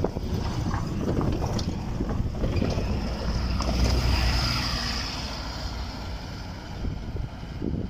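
Van Hool articulated bus moving past close by: a low rumble with a faint high whine that swells about four seconds in, and wind buffeting the microphone.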